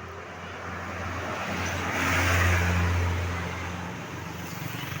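A tour bus driving past: engine hum and tyre noise swell to a peak about halfway through, then fade away.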